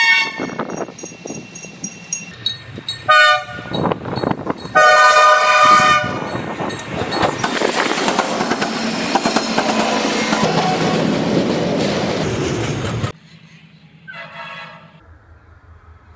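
Diesel freight locomotives' air horn sounding at a level crossing in several blasts, the last one long, with the crossing bell ringing in steady strokes at first. Then the locomotives pass close by in a loud, steady rush of engine, wheel and plowed-snow noise that cuts off abruptly, after which a distant train horn sounds faintly.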